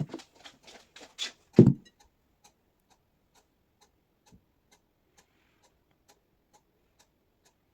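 Steady light ticking, about two clicks a second. In the first two seconds a quick run of rustling, clattering sounds ends in a dull thump, the loudest sound here.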